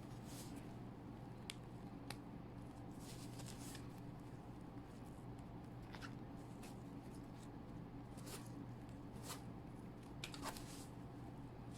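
Faint handling sounds of a rubber dam sheet being fitted onto its frame: scattered light clicks and short rustles over a steady low hum.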